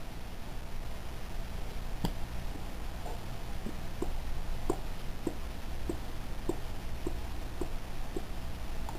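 A rag dampened with mineral spirits is wiped lightly in short strokes across a Ruger P95DC's polymer frame, a small tick on each stroke, nearly two a second, over a low steady hum.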